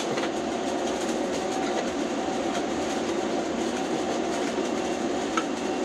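Ship-to-shore container crane's machinery running steadily, heard in the operator's cab: a steady hum of several tones over a mechanical rush.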